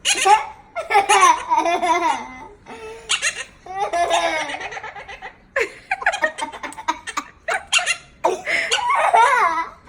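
Laughter in repeated bursts, about nine bouts with short pauses between them.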